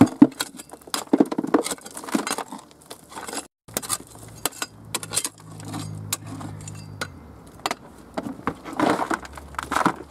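A hand tool scraping and chipping at rocky soil, with loose earth and stones clattering into a metal bucket in many irregular knocks and clinks.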